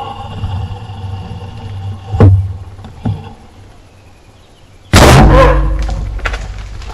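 A sharp thump about two seconds in, then a sudden very loud bang about five seconds in that dies away over a second or two.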